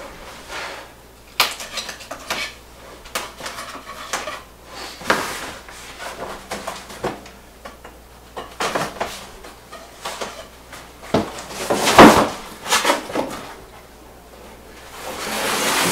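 Large cardboard shipping box being cut open with a knife and handled: scraping, rustling and scattered knocks, one louder knock about twelve seconds in, and a swelling hiss near the end.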